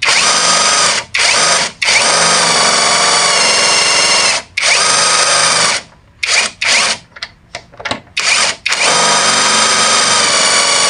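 Cordless electric impact wrench driving a motorcycle wheel's axle nut tight, its motor whining and hammering in repeated trigger pulls. There is a brief pause around 6 seconds in, then a run of short pulses, then one long steady run near the end.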